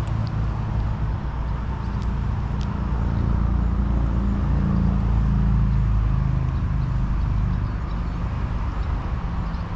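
Low engine drone of a passing motor, swelling to its loudest around the middle and then fading.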